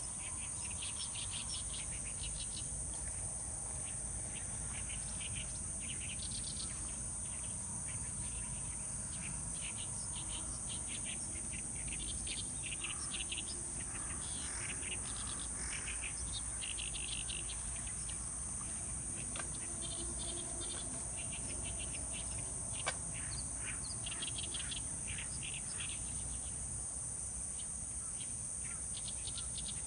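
Steady high-pitched insect chorus with birds chirping and trilling on and off over it. A single sharp click about three-quarters of the way in.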